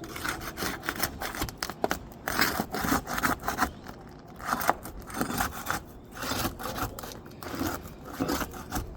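Steel flat bar scraping and prying under old asphalt roof shingles, with irregular scrapes and sharp clicks. The shingles are brittle and worn bare of granules, so they crack and break as they are lifted.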